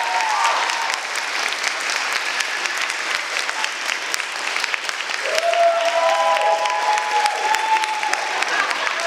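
Audience applauding steadily after an a cappella song ends. From about five seconds in, whooping cheers ride over the clapping for a few seconds.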